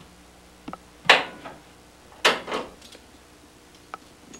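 Vise grips being reclamped on the trailing edges of a fiberglass cowl: two sharp clacks about a second apart, the first the louder, with a few small clicks of handling.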